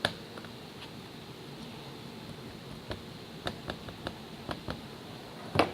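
Light clicks and taps of small terrain-kit parts being handled and turned over on a work surface: one at the start, a scatter of about seven in the second half, and a louder knock near the end.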